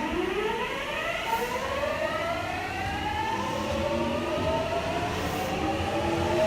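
Subway train's inverter-driven traction motors whining as it pulls away: several tones climb steadily in pitch for about three seconds as it accelerates, then level off over the running rumble.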